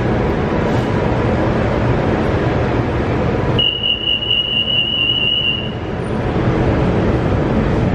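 Steady rumble and hum inside a metro train car standing at a station platform. A little over three seconds in, a single high electronic tone sounds for about two seconds, typical of the warning before the doors close.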